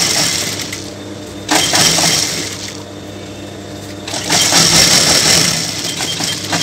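JACK industrial lockstitch sewing machine stitching in three short runs, with the motor's steady hum between them.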